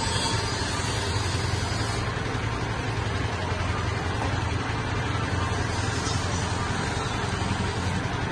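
Tour boat's engine running steadily as it moves along the canal, a low even hum under a constant wash of noise.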